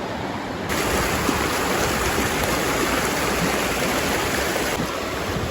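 Small mountain creek rushing over rocks, a steady wash of water noise that grows fuller about a second in and eases slightly near the end.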